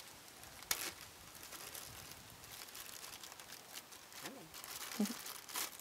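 Faint crinkle of a plastic zip bag as a lump of air-dry clay is taken out, followed by soft, scattered rustling of hands working the clay.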